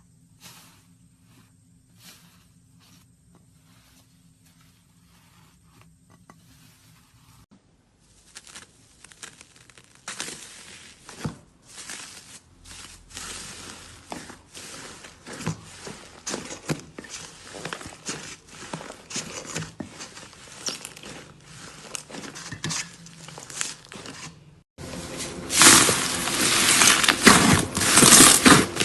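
Slime being worked by hand, with many small sticky pops and clicks as it is pressed and pulled. Faint at first, it grows louder after about eight seconds and is loudest over the last few seconds.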